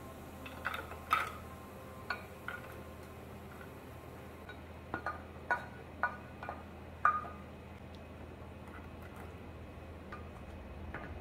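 A spatula scraping and tapping against a ceramic serving dish as chopped onion and bell peppers are pushed off it into a skillet: scattered light clinks and knocks for the first seven seconds or so, then quiet apart from a faint low hum.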